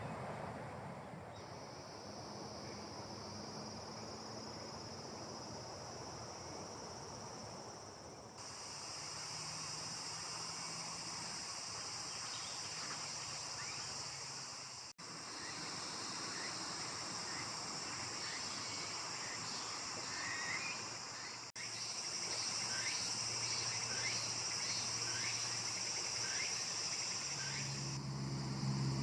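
Insects trilling in a steady high-pitched chorus, fainter and pulsing at first and louder from about eight seconds in, with faint short chirps over it. The sound cuts out abruptly twice for an instant.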